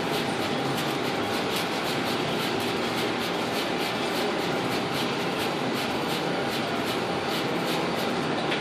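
Assembléon iFlex T2 pick-and-place machine running at production speed: a steady machine whir with a quick, regular ticking as its placement heads pick and place surface-mount components.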